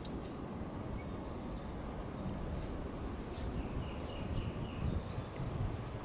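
Woodland outdoor ambience: a steady low rumble, with a short run of faint bird chirps a little past the middle and a few soft clicks.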